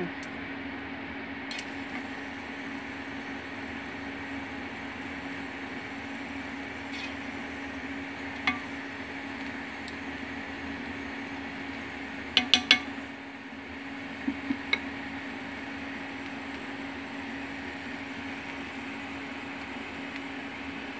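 A utensil clinking against a cooking pan as cooked pancit canton noodles are mixed, over a steady low hum. There is a single clink about eight seconds in, then two quick runs of three clinks a little past the middle.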